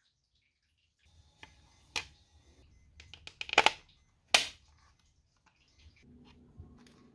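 Handling noises of a thin plastic panel being fitted onto a metal RC car chassis: scattered clicks and taps, a quick cluster about three and a half seconds in and one sharp click about a second later.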